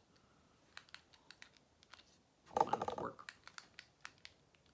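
Soft scattered clicks and taps from hands handling the recording device, with one brief louder burst of sound about two and a half seconds in.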